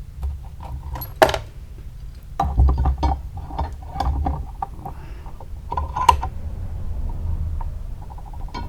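Irregular metallic clicks, clanks and rattles of a steel lawnmower blade being handled, taken off its balancer and set up for more grinding, over a steady low hum.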